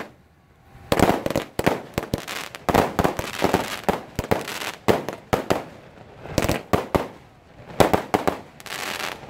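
A string of firecrackers going off in rapid, irregular cracks, starting about a second in, with a couple of short pauses between runs.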